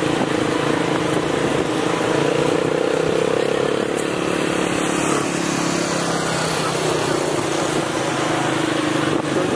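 A motor vehicle running steadily, its engine hum under a wash of road and wind noise.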